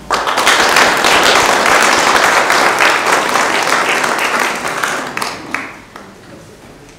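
Audience applauding, starting all at once and dying away after about five seconds.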